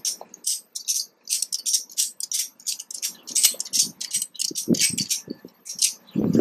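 Wheel-lift safety strap being fastened and tightened around an SUV's tire: an irregular run of short metallic clicks and rattles from the strap hardware, a few a second, with a couple of dull knocks about two-thirds of the way in.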